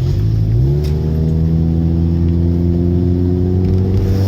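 Car engine accelerating: its pitch climbs quickly in the first second, then keeps rising slowly and steadily.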